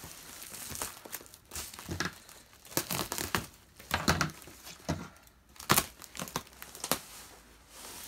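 Parcel wrapping being undone by hand: packaging crinkling and tearing in irregular bursts, with several sharper crackles.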